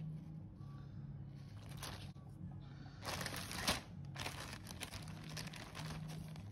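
Clear plastic garment bags crinkling and rustling in irregular bursts as they are handled, loudest about halfway through. A faint low steady hum runs underneath.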